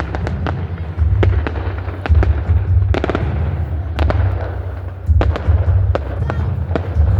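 Fireworks bursting in a display: a rapid run of sharp bangs and crackles, several close together, over a low pulsing boom that swells about once a second.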